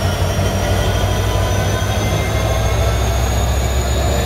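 Israel Railways diesel locomotive moving slowly past with a double-deck passenger train, its engine giving a steady low rumble. A thin high whine rises slowly in pitch over it.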